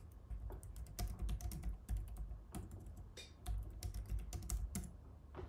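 Typing on a computer keyboard: a run of irregularly spaced keystroke clicks as a short sentence is typed.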